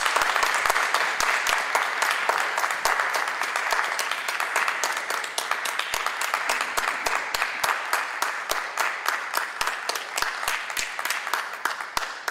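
Audience applauding, a dense patter of many hands clapping with individual claps standing out. The applause thins a little and cuts off at the very end.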